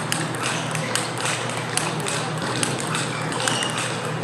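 Table tennis rally: the ball clicks off rackets and table in a quick, irregular patter, with more clicks from other tables in a reverberant hall. A steady low hum runs underneath.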